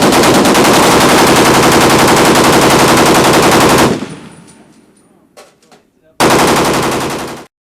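Automatic gunfire: a long, rapid, continuous burst that stops about four seconds in, followed by a few faint clicks, then a second burst of about a second and a half that cuts off abruptly.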